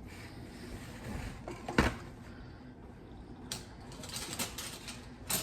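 A few scattered light clinks and knocks of silverware and dishes being handled in washing up, the sharpest a little under two seconds in, over a faint steady background.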